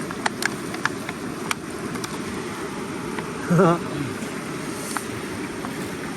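Steady low rush of a flooded river, with scattered small clicks and taps. About three and a half seconds in, a person makes a brief wavering hum or call.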